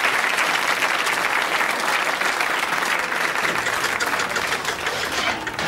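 Studio audience applauding, a dense steady clapping that dies away near the end.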